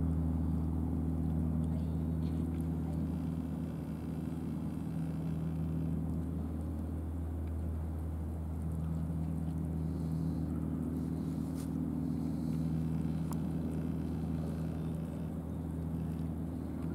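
A steady, low droning hum of an engine running without change.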